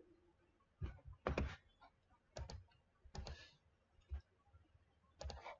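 Computer mouse and keyboard clicks, faint and separate, roughly one a second.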